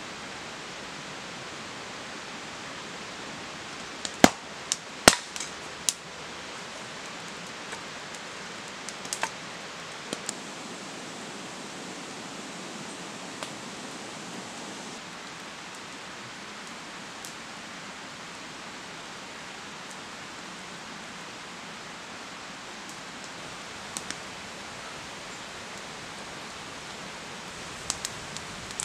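A steady, even hiss with scattered sharp snaps over it: a loud cluster a few seconds in, a few more around a third of the way through, and several near the end, where a wood campfire is burning and popping.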